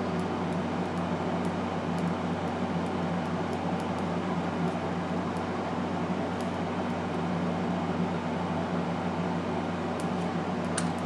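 Steady mechanical hum, like a fan running, with a few faint small clicks near the end.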